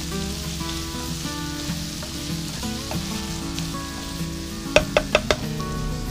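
Corned beef, onion and carrot sizzling in a frying pan as they are stirred, with four quick sharp knocks close together near the end. Background music plays underneath.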